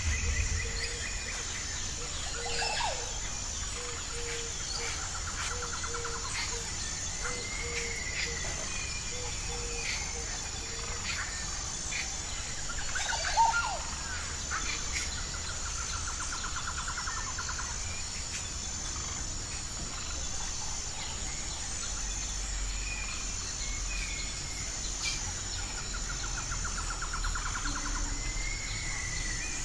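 Wild birds calling: scattered chirps, a buzzy trill that comes back about every ten seconds, a row of low evenly spaced notes over the first ten seconds, and one louder chirp about halfway through. Under them runs a steady high-pitched insect trill.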